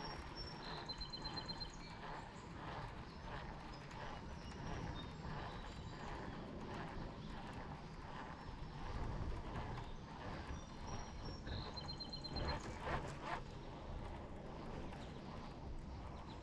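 Water knocking and lapping against a small boat's hull in irregular clops, with a short high trill heard twice.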